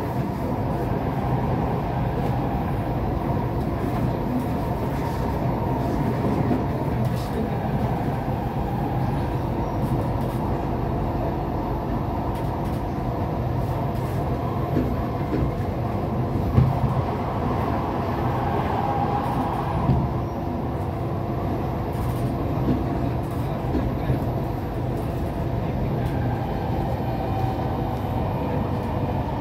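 Inside an SMRT C751B metro train running steadily along elevated track: an even rumble of wheels on rail with a low steady hum, and a few faint sharp knocks about halfway through.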